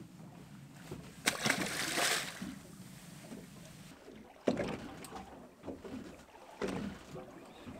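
Boat noise on open water: water sloshing against the hull, with a second-long burst of rushing water-like noise about a second in and a sharp knock about halfway through.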